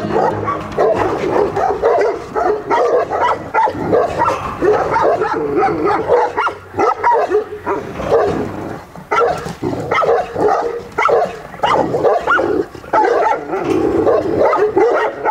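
Caucasian Shepherd barking and whining: a rapid, unbroken string of short calls that bend up and down in pitch.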